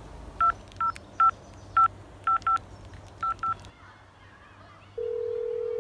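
Mobile phone keypad tones as a number is dialled: eight short two-tone beeps, some in quick pairs. About five seconds in, a steady single tone starts, the call ringing out.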